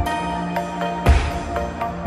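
Background electronic music. Its deep bass drops out for a moment, with one low drum hit about a second in.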